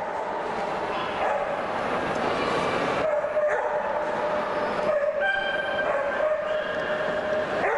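Dog whining repeatedly in drawn-out whines over the steady hubbub of a large indoor show hall.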